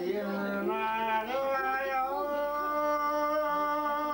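A voice singing a song, gliding through a few notes and then holding one long note with a slight waver through the second half.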